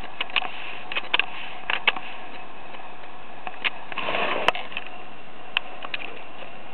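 Sony A55 shutter clicking in short irregular runs, several times two clicks in quick succession, then single clicks spaced further apart, over a steady high hiss.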